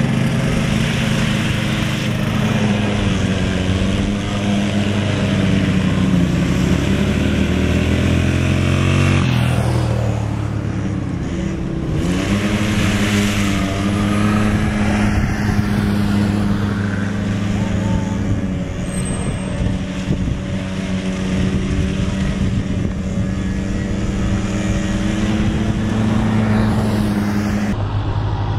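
Small youth ATV engines, 50cc and 90cc quads, running and revving as they ride, the engine note rising and falling with the throttle.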